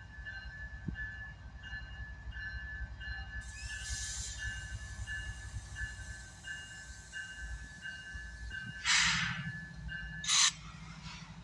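CSX diesel freight locomotives running with a low rumble while the lead unit's bell rings steadily, about twice a second. There is a hiss of air about four seconds in, and two louder, sharper bursts of air near the end, when the bell stops.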